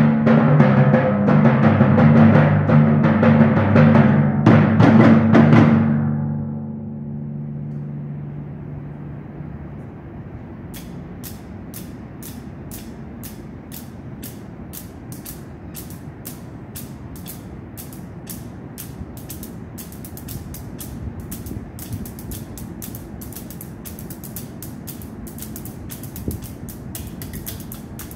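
Percussion ensemble: loud timpani and drums played together ring out and die away about six seconds in. A soft, low drum rumble then carries on beneath a steady run of sharp clicks at about three a second, which quicken about twenty seconds in.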